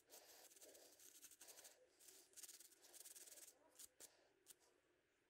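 Faint scratching of a small wire brush scrubbed in short, irregular strokes across the carbon deposits on an engine valve's head, carbon that a Seafoam soak has not dissolved.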